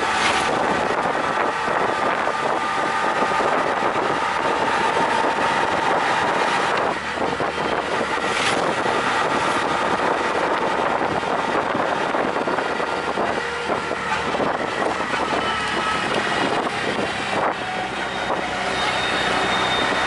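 Auto-rickshaw's small engine running steadily as it drives along a street, with road and traffic noise coming in through the open-sided cabin. A couple of brief sharp noises stand out, one at the start and one about eight seconds in.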